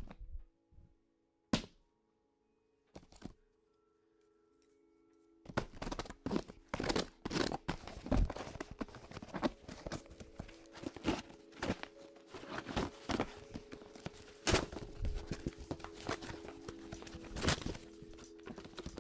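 Cardboard shipping box being opened: a few separate thunks in the first three seconds, then from about five seconds in a dense run of cutting, scraping and tearing as scissors slit the packing tape and the flaps are pulled open. Soft background music with held notes plays underneath.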